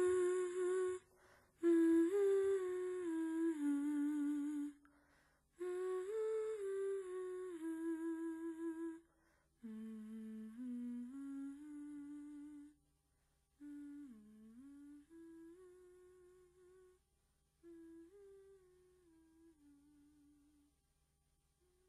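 Background music: a wordless hummed melody in short phrases, each fainter than the last, fading out near the end.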